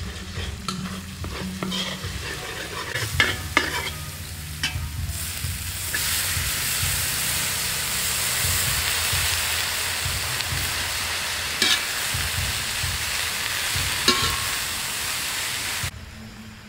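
Food sizzling in a hot pan while a utensil knocks and stirs against it. The sizzle grows loud about five seconds in, with a couple of sharp clinks, and cuts off suddenly near the end.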